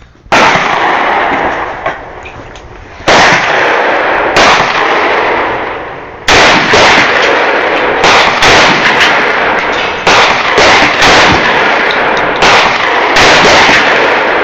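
A CZ 52 pistol firing 7.62×25mm Tokarev rounds: about a dozen shots at uneven gaps of roughly half a second to two seconds, each very loud crack trailing off in a long ringing echo.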